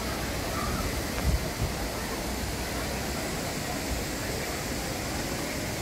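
Steady, even outdoor rushing noise, with two brief low thumps about a second and a half in.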